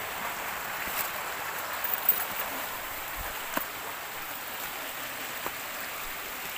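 River water rushing steadily, with a few light clicks.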